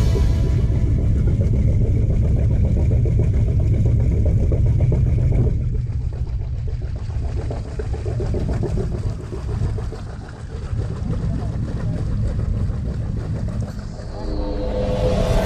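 Toyota Land Cruiser 100 Series engine revving hard as the four-wheel drive tries to drive out of a deep mud hole where it is bogged. The engine is loudest for the first five or so seconds, then eases back.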